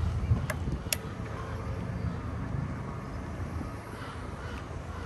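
Road traffic noise: a steady low rumble, with two sharp clicks about half a second and a second in.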